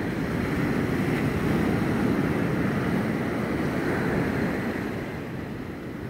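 Small Gulf waves washing against the concrete pilings under a pier: one swell of water noise that builds over the first two seconds and fades away by about five seconds.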